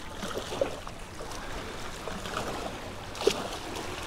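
Water sloshing and splashing against jetty rocks as a hooked speckled trout is brought to the rocks, with scattered small ticks and one sharp click about three seconds in.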